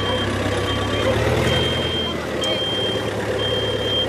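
A tractor's reverse alarm beeping about once a second, over the Yanmar 1160 SR turbo's diesel engine running steadily.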